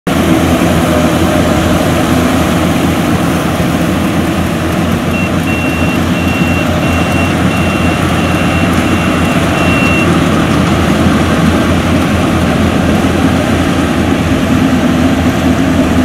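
Yanmar AW70GV combine harvester running steadily under load as it cuts rice, a dense engine drone with the clatter of its cutting and threshing gear. About five seconds in, a run of short, evenly spaced high beeps goes on for about five seconds.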